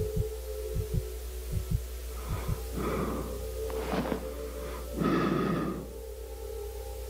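Horror-animation sound design: a steady low drone and held tone under heartbeat-like double thumps, roughly one beat a second. After about two seconds the beat gives way to harsh, breathy rasps as the mouthless creature gapes and lunges, with the loudest rasp about five seconds in.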